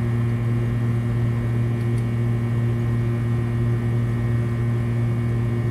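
Industrial sewing machine's clutch motor running idle with a steady, unchanging hum; the machine is not stitching.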